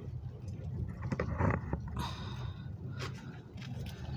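Scattered light knocks and a brief scrape of hand tools being moved and set down on pavement, with no clear hammer strike.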